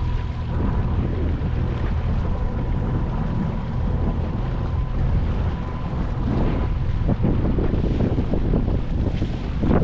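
Strong wind buffeting the microphone, a steady low rumble, with water slapping against a small boat's hull. A faint steady whine fades out about halfway through.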